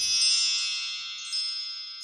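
Bright chime with several high ringing tones that slowly fade, struck again lightly a little past halfway.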